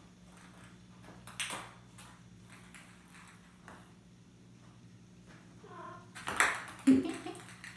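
Ping pong ball tapping and clattering on a tile floor as Maine Coon kittens bat it about, with a cluster of louder knocks near the end.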